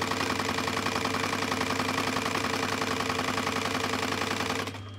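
Industrial sewing machine stitching a zip onto a cushion panel at a steady, rapid run, with a steady motor hum under the needle strokes. The stitching stops shortly before the end, while a quieter hum carries on.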